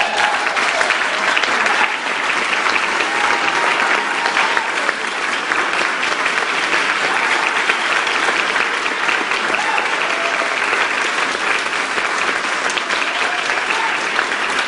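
Audience applauding steadily after a marimba piece, with a few short voices rising over the clapping.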